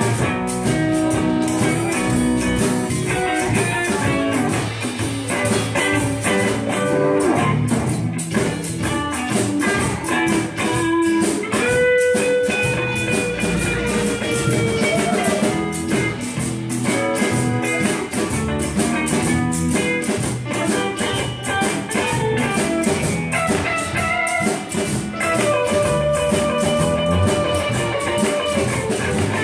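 Live blues band playing: acoustic and electric guitars over a drum kit keeping a steady beat, with a lead line of long held notes that bend in pitch.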